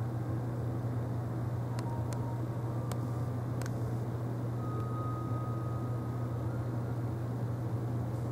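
A steady low hum over an even background hiss, with four faint clicks between about two and four seconds in.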